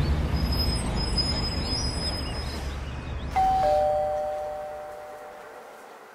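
Two-tone doorbell chime, ding-dong, about three seconds in: a higher note then a lower one, ringing out and fading over about two seconds. Before it, a steady low rumble with faint high chirps.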